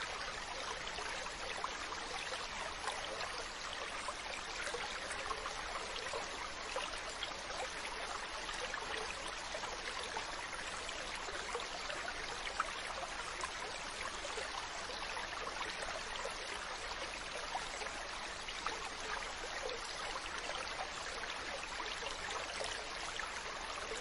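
Steady running water like a small babbling stream: an even rushing hiss with many faint trickles and splashes, unchanging throughout.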